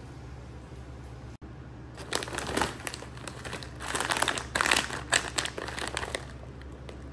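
Plastic pouch of shrimp fried rice crinkling and rustling as a hand presses it flat on a countertop and picks it up. It starts about two seconds in, is loudest in the middle and stops about a second before the end.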